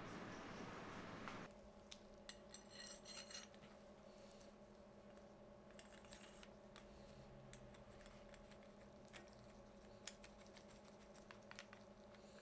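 Near silence over a steady faint hum, with scattered light clicks and scrapes of small hard objects being handled. A louder hiss cuts off suddenly about a second and a half in.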